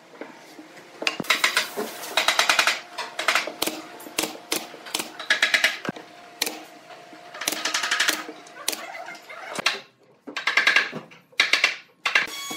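Pneumatic brad nailer driving brads into pine boards, in several short bursts of rapid snaps, with boards being handled between the bursts.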